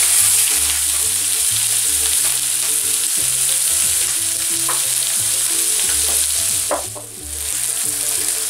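Carrot and spring-onion strips sizzling in hot olive oil in a stainless-steel wok while being stirred with a silicone spatula. The sizzle runs steadily, dips briefly about seven seconds in, then comes back.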